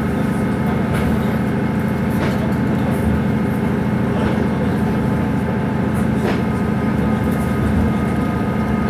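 Tsugaru 21 series diesel railcar running, heard from inside the cabin: a steady engine and running drone with a few faint clicks from the wheels on the track.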